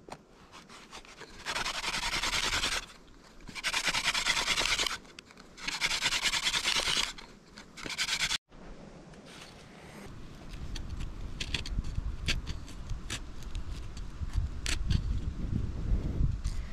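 Grass tree flower stalk scraped against a weathered wooden board in three rough rubbing strokes of about a second and a half each. After a break come softer rubbing and scattered light clicks as the stalk is handled.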